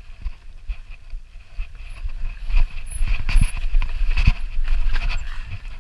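Mountain bike setting off over loose rock: tyres, frame and chain knocking and rattling on stone, getting louder and busier about two seconds in.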